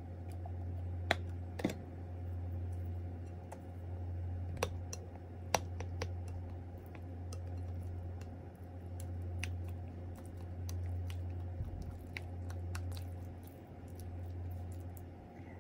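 Plastic spoon stirring curry and rice in a ceramic bowl: scattered sharp clicks of the spoon against the bowl and soft squishing of the sauced rice, over a steady low hum.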